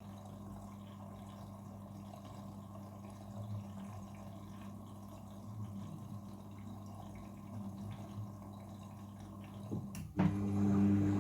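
Front-loading washing machine in its rinse cycle: a steady hum with water trickling in. About ten seconds in there is a click, and the machine's motor starts running, much louder.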